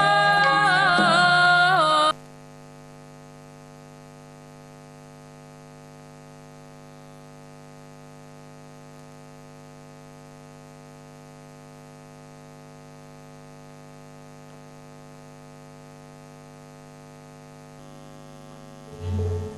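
Music with a singing voice cuts off suddenly about two seconds in, leaving a steady electrical mains hum. Music comes back in near the end.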